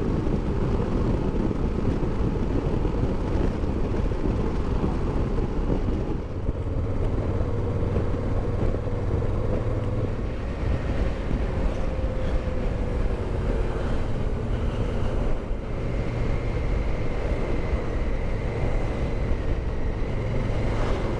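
Motorcycle cruising at highway speed, heard from the rider's own bike: steady engine drone mixed with heavy wind and road rumble on the microphone.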